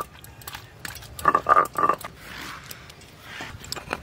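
An animal calling three times in quick succession, short pitched calls about a third of a second apart, starting about a second in, with light clicks of handling around them.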